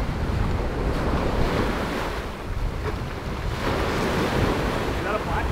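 Ocean surf breaking and washing up the beach, with wind buffeting the microphone in a low rumble.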